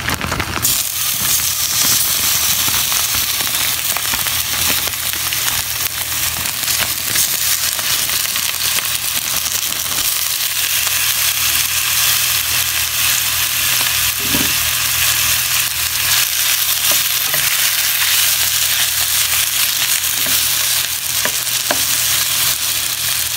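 Diced beef steak cubes and sliced onions sizzling steadily in hot oil in a non-stick frying pan, with a few light scrapes and taps of a wooden stirring utensil near the end.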